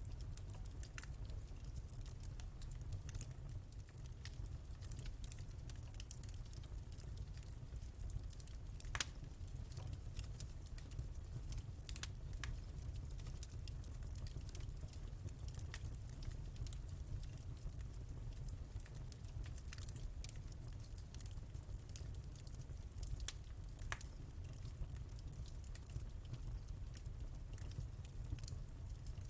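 Wood fire crackling in a fireplace: many scattered sharp pops and snaps, a few of them louder, over a steady low rumble.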